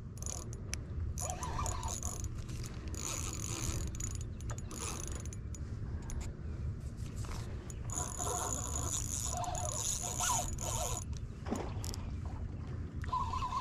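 Spinning reel being cranked under the load of a hooked, fighting fish: steady gear whirring with many small clicks.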